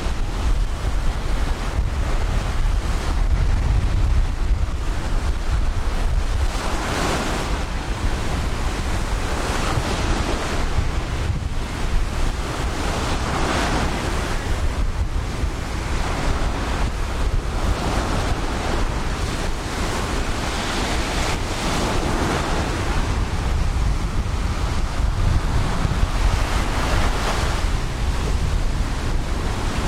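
Ocean surf: waves breaking and washing up the beach, swelling and fading every few seconds, over a steady low rumble of wind on the microphone.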